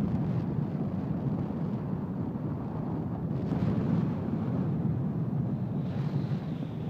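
Wind buffeting the phone's microphone: a loud, steady low rumble.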